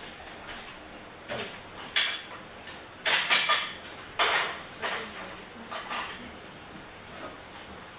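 Hard objects clinking and clattering as they are handled: about ten irregular knocks with short ringing, the loudest around two seconds and three seconds in.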